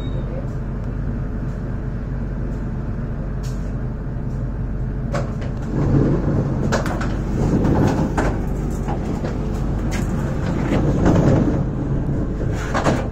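Passenger train running on the rails with a steady rumble. About five seconds in, a series of sharp knocks and louder bursts of clatter begins and repeats to the end.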